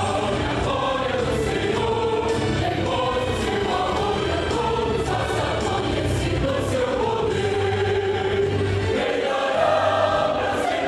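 Youth choir singing a gospel song in long, held phrases, with a steady low bass line beneath.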